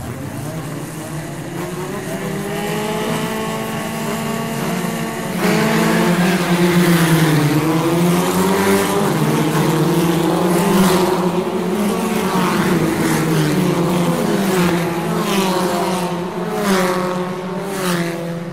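Racing engines at a start line: revving and rising in pitch, then about five seconds in they get suddenly louder as the field launches and accelerates away. After that, several engines rise and drop in pitch together.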